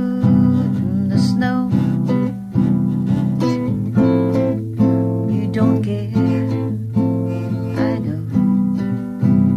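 Background music led by strummed acoustic guitar with a steady rhythm.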